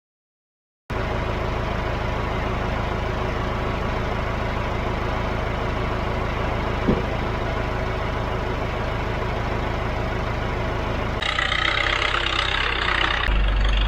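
An engine idling steadily, with a low hum under it. It starts after a moment of silence, and near the end it changes twice, growing louder and brighter.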